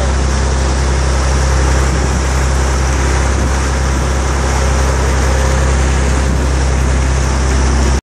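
A fishing boat's engine running steadily under way, a low steady drone, with the wake rushing and churning behind the stern.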